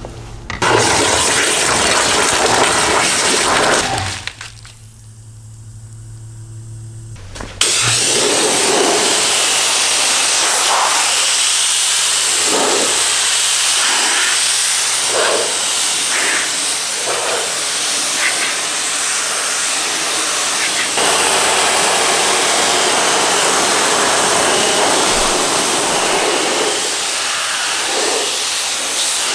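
Pressure washer spraying water in a loud, steady hiss, stopping for about three seconds around four seconds in, when only a low steady hum remains, then spraying again.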